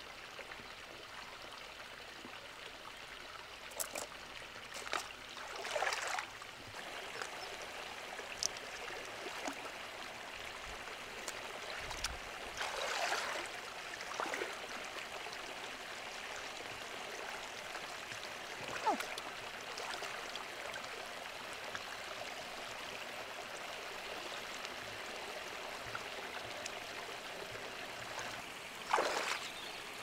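Shallow river water running steadily, with occasional short splashes and sloshes of feet wading through it, the louder ones a few seconds in, around the middle and near the end.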